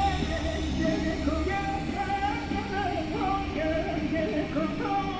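Background music: a wavering, ornamented melody over a dense, steady backing.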